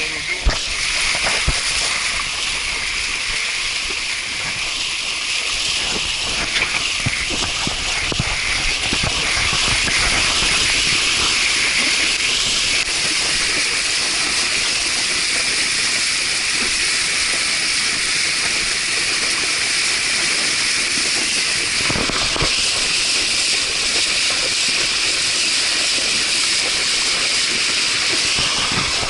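Steady rushing water of a mountain stream or waterfall, a full hiss that grows a little louder after about ten seconds.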